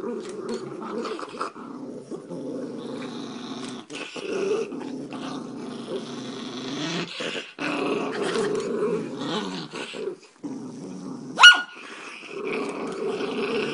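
Dog growling almost without pause in long rough stretches, broken by short gaps. About eleven seconds in there is one short, sharp, high-pitched cry, the loudest sound.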